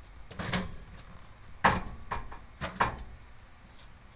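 A ladder being turned around and set down: a few sharp knocks and scrapes, the loudest one near the middle.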